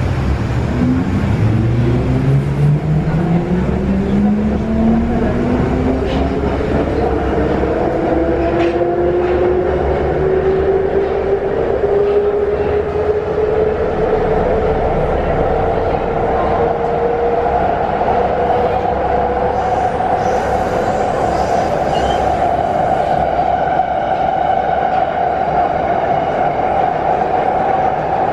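Wagonmasz series 81 metro train's traction motors whining, several tones rising steadily in pitch for about 18 seconds as the train accelerates, then holding level at running speed. Underneath is a steady rumble of wheels on the rails in the tunnel.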